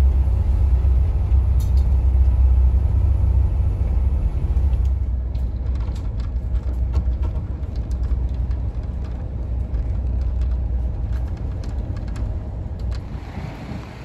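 Ferry engine running with a steady low rumble, heard from inside the passenger cabin, with a few light knocks; the rumble eases off near the end.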